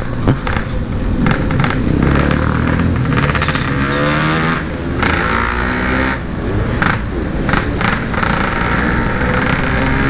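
Yamaha RX-King's two-stroke single-cylinder engine under way through a stock-look Packing Power muffler, its revs climbing and dropping back several times as the throttle is worked.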